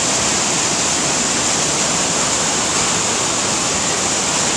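Loud, steady rush of a large waterfall.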